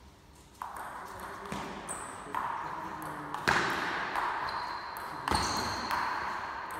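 Table tennis rally: the ball clicking sharply off the bats and the table, about one hit every half second to a second, echoing in a large hall.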